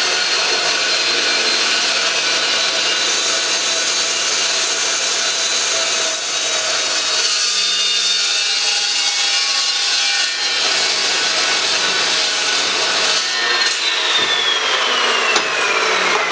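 Power tool cutting into steel, a steady rasping noise over a high motor whine; about 13 seconds in the whine starts to fall as the motor spins down.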